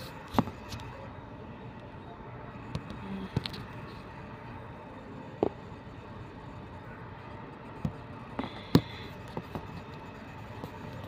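Scattered light knocks and clicks from handling a plastic food container and the phone, over a steady background hum.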